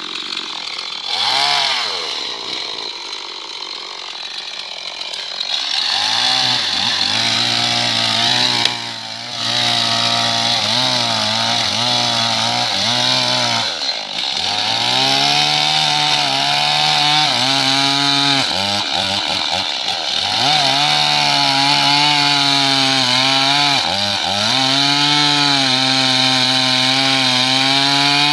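Stihl two-stroke chainsaw running lower at first with a brief rev, then from about six seconds in held at high revs while cutting low into a standing tree trunk; the engine pitch wavers and dips several times as the chain loads in the wood.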